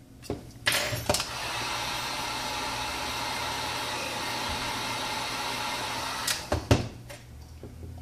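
Electric heat gun switched on with a click, blowing steadily for about six seconds, then switched off; it is heating the phone's front to soften the screen adhesive.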